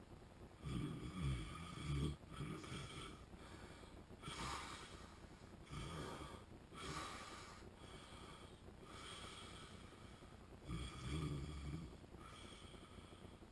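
A man with sleep apnea snoring in his sleep: irregular snores and breaths, the loudest low snores about a second in and again near the end, with quieter breaths between.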